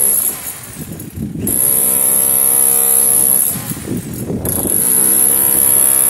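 Corded electric jackhammer chiselling at a limousine's body panel around a window opening, run in short bursts: it stops just after the start, runs again for about two seconds from a second and a half in, pauses briefly and starts up again.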